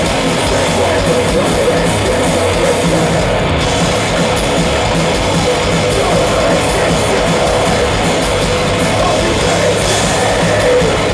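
Live heavy metal/hardcore band playing loud, with distorted guitars and drums, recorded from the audience.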